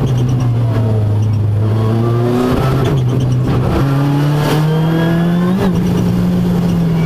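Ford Fiesta R5 rally car's turbocharged four-cylinder engine heard from inside the cabin, driven hard at stage pace. The engine note eases down, then jumps up with sharp cracks at gear changes about two and a half and four seconds in, climbs, and cracks again at another shift a little past five and a half seconds.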